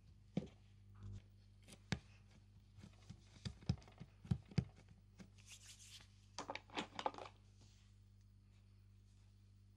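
Hands working a lump of salt dough on a wooden tabletop: a scatter of soft knocks and taps, then a stretch of rustling and scraping about six to seven seconds in.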